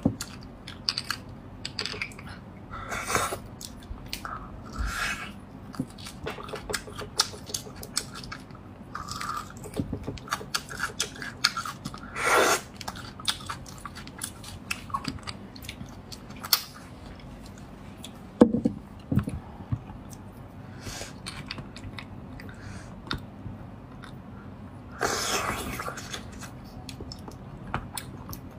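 Close-miked chewing and mouth sounds of someone eating spicy braised beef bone marrow, with many small clicks and a few louder bursts, one around halfway and one near the end.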